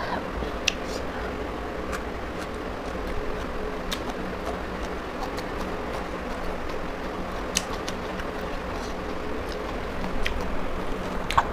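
Fingers picking through a plate of shredded cabbage salad: faint scattered clicks and rustles, about one every second or two, over a steady background hum.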